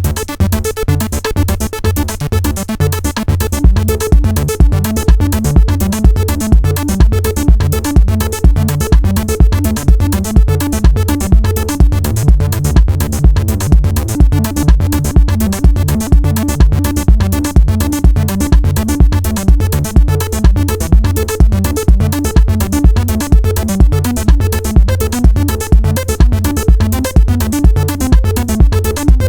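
Electronic jam on a Roland TR-8 drum machine with Behringer TD-3-MO and Arturia Minibrute 2s synthesizers: a steady kick at about two beats a second under short, repeating synth bass notes. The beat comes in harder about three and a half seconds in.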